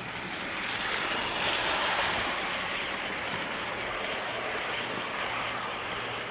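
Model train running past on Kato Unitrack: a steady whirring rumble of the locomotive and the wheels of its passenger cars rolling on the track. It swells as the train nears, is loudest about two seconds in, and stays up as the cars go by.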